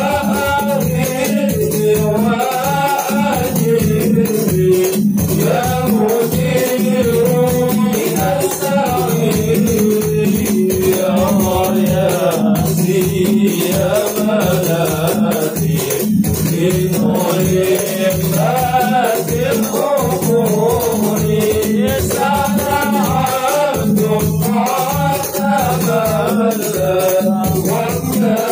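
A group of men singing an Arabic devotional maulid chant through microphones and a PA, over a fast, steady beat of hand percussion.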